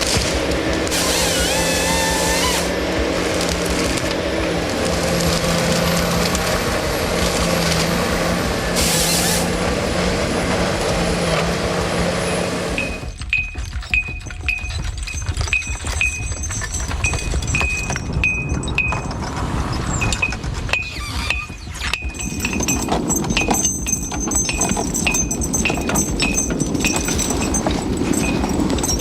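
A forestry machine's engine running steadily with a high whine over it. About thirteen seconds in, it gives way to a horse logging: light metallic clinks repeating from its harness and chains, with hoof steps.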